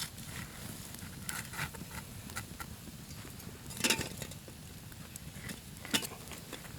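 Wood campfire crackling with irregular pops, the loudest about four and six seconds in, while a steak cooks over it.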